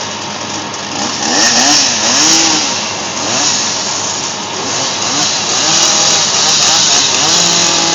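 Brand-new Echo CS-8000 two-stroke chainsaw running hard, growing louder about a second in, with its pitch wavering up and down. It sounds doggy, sluggish because the engine is not yet broken in.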